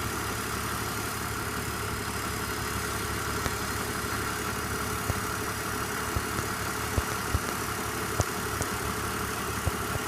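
BMW engine idling steadily, with a few scattered light clicks. Its VANOS unit has been repaired, and the engine runs without the old VANOS rattle, which the owner calls still pretty good.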